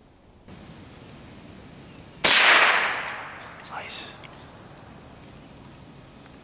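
A single .22 rifle shot: one sharp crack about two seconds in, with a ringing tail that fades over about a second. Two fainter short sounds follow about a second and a half later.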